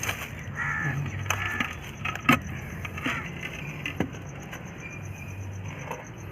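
Knocks and rustling from a heavy plant pot being turned over and worked to free the soil and root mass, with the sharpest knock about two seconds in.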